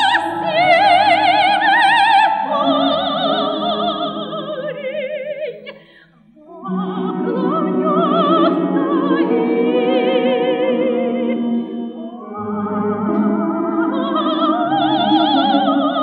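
Operatic soprano singing a Russian folk song with a wide vibrato, accompanied by an orchestra of Russian folk instruments; the music stops for a short pause about six seconds in.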